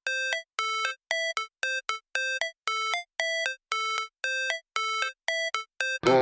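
Electronic intro music: a repeating pattern of short, clipped synthesized notes, about three a second, with fuller electronic music coming in near the end.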